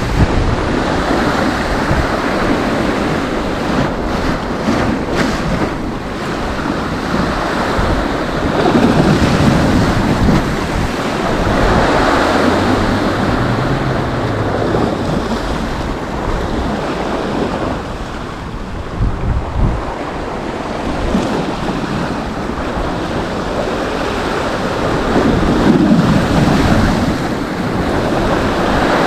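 Sea surf breaking and washing on a beach, swelling and easing every few seconds, with wind buffeting the microphone.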